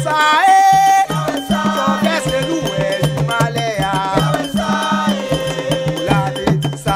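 Haitian folk music: voices singing a melody over a steady rhythm with a shaker rattle.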